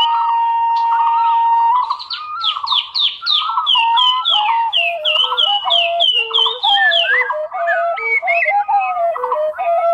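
Birdsong-like chirping and whistling: a steady tone held for about the first two seconds, then a quick run of falling chirps over lower whistled notes.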